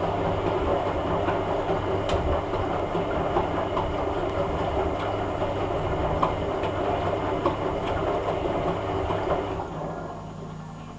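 Hoover A3786 Logic washing machine drum turning during a rinse tumble: a motor hum under water and laundry sloshing, with scattered knocks. The tumble starts at the beginning and stops about nine and a half seconds in.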